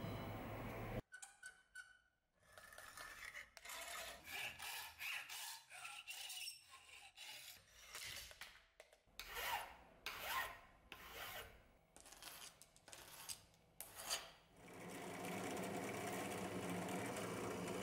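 Irregular strokes of a hand file on a steel rivet rod clamped in a bench vise. About 14.5 seconds in, a benchtop drill press starts running steadily, drilling through the wooden handle scales.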